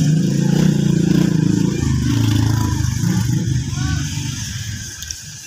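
Motorcycle engine running close by. It starts suddenly, drops in pitch about two seconds in, and fades away near the end.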